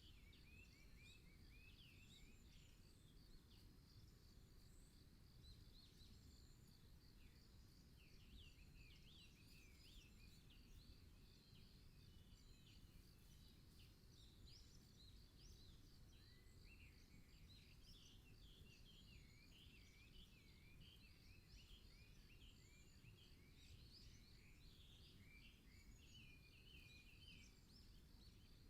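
Faint forest birdsong: several small birds chirping in quick rising and falling phrases, busiest in the second half, over a steady thin high tone and a low rumble.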